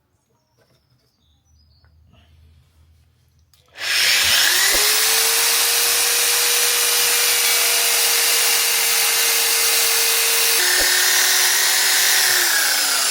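Electric drill with a buffing head polishing a chrome engine rocker cover. The motor spins up about four seconds in and runs at a steady whine under a loud hiss of the pad on the metal. Near the end its pitch drops, and then it begins to wind down.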